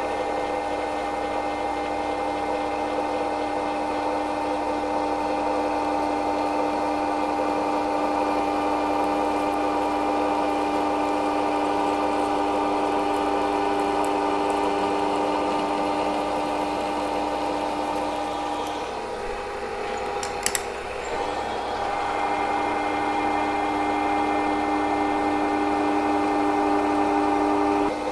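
Milling machine spindle turning a twist drill through a metal part held in a vise, fed at a slowish speed: a steady motor and spindle hum with the drill's cutting noise. About two-thirds in the sound briefly drops, with a couple of sharp clicks, then the steady hum returns.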